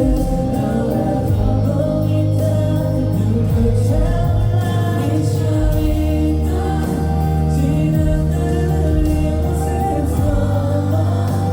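Pop song with many voices singing together in unison, a crowd singing along to the music.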